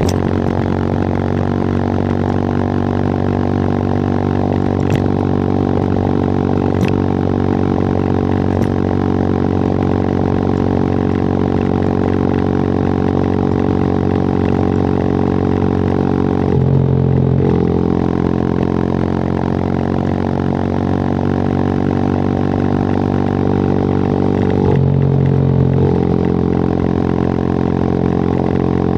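WMOTO Hawk 200i motorcycle engine running steadily under way, its note breaking and shifting twice, about two-thirds of the way through and again near the end, like gear changes.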